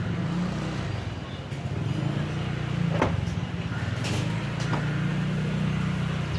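Steady low drone of a running motor vehicle engine, with a few short sharp clicks over it about halfway through.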